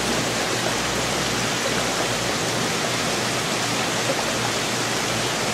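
Steady rushing of water, as from an aquarium's filtration and circulation, with a faint low hum from the pump underneath.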